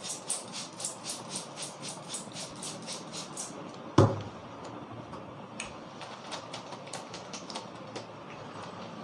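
Hands working a head massage: fast, even slapping strokes, about four or five a second, for the first few seconds. Then one loud sharp crack about four seconds in, followed by a few scattered lighter taps.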